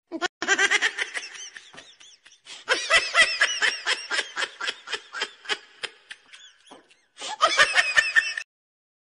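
High-pitched laughter in three stretches of rapid, rhythmic pulses, each starting and cutting off abruptly.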